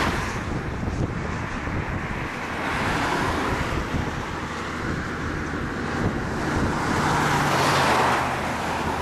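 Wind rushing and buffeting across the microphone, swelling near the start and again near the end. A low vehicle engine hum comes in about seven seconds in.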